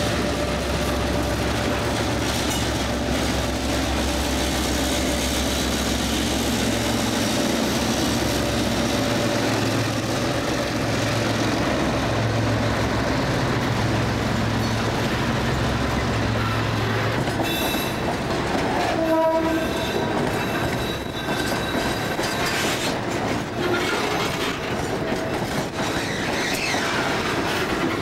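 Diesel freight locomotive running as it passes, its low engine hum dropping away about two-thirds of the way through. Then the train's hopper cars and boxcars roll by, wheels clattering on the rails.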